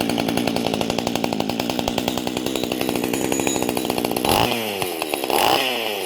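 Small 10-inch two-stroke chainsaw engine running steadily, now firing again after its no-spark fault was fixed. It revs up briefly twice, about four and five seconds in.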